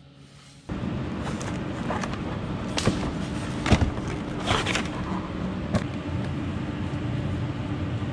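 A steady mechanical hum starts suddenly about a second in, with scattered knocks and rustling from a cardboard box being rummaged through by hand.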